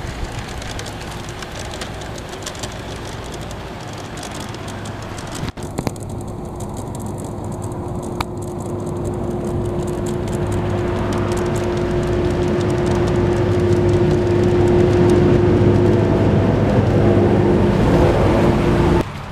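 G scale model train, a pair of USA Trains NW2 diesel switchers pulling a freight, running on garden track: a steady motor and gear hum over the rumble of wheels rolling on the rails. It grows louder through the middle and cuts off abruptly near the end.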